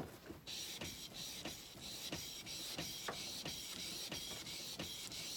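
Steel chisel bevel being rubbed back and forth on a medium-grit sharpening stone, a steady gritty rasp that starts about half a second in. The strokes come about three times a second.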